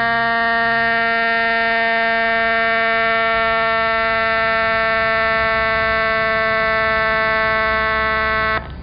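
Whelen X-ecutor siren amplifier driving a 100 W Whelen aluminum speaker, sounding one loud, steady buzzing horn tone at a fixed pitch that cuts off abruptly near the end.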